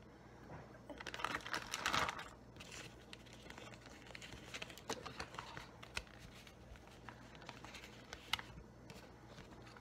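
Light crinkling, tapping and clicking from handling a plastic zip-top bag and a paper plate, busiest about one to two seconds in, then scattered small clicks.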